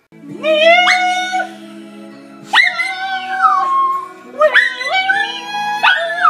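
A dog howling along to music: three long howls that slide up and down in pitch, over steady held notes of the music.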